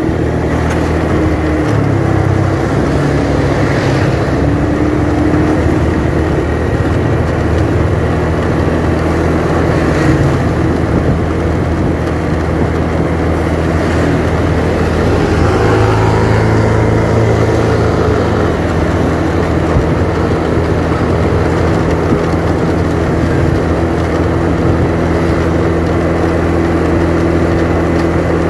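Motorcycle engine running steadily at riding speed, heard from on the bike over road and wind noise; its pitch shifts a couple of times as the rider eases off and speeds up again.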